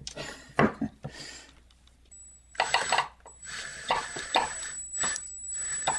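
Steel drill bit grinding and scraping at a stuck fastener in a reciprocating saw's aluminium gear housing: a few sharp clicks, a short pause, then about three seconds of uneven rasping with a faint high steady whine.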